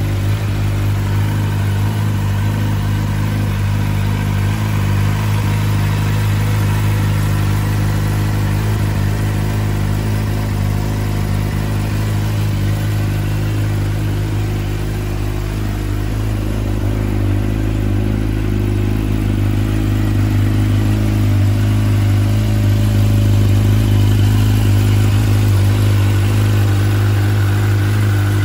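Kawasaki Ninja ZX-25R's 250 cc inline-four engine idling steadily through an aftermarket full exhaust system.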